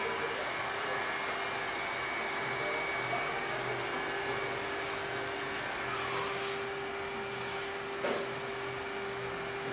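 Leister hot-air welder blowing steadily while it welds a sidewall onto a conveyor belt's edge, with a steady hum from the sealing machine underneath. There is a faint knock about eight seconds in.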